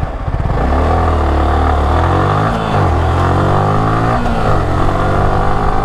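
Motorcycle engine running under load at speed, its revs dipping and picking up again twice, about two and a half seconds in and again around four seconds, over a steady rush of wind noise.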